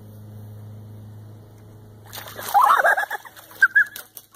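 Ducks quacking. A loud flurry of calls comes about two seconds in, then two short higher calls a moment later. A low steady hum sits underneath for the first half.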